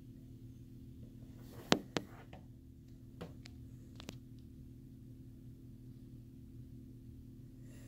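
A steady low hum with a few sharp clicks: two loud ones close together about two seconds in, then fainter ones over the next two seconds.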